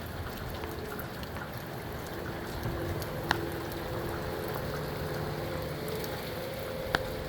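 Steady rain falling, with two sharp drip hits, one about three seconds in and one near the end.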